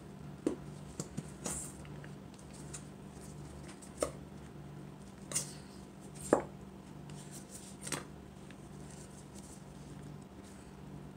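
Plastic squeeze bottle of glitter glue being squeezed and knocked against a plastic mixing bowl while the last glue is emptied out: scattered sharp clicks and knocks, about eight, the loudest about six seconds in.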